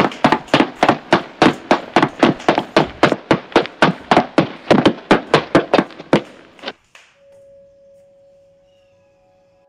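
Quick, even footsteps on a hard tiled floor, about three or four steps a second, stopping about seven seconds in. A single held chime-like music tone then begins, with more notes joining near the end.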